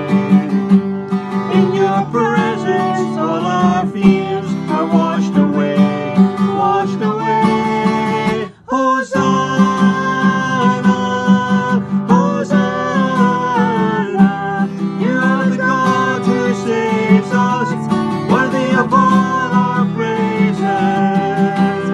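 Worship song music led by strummed acoustic guitar, with a melody line gliding over it. The sound drops out for a moment about eight and a half seconds in.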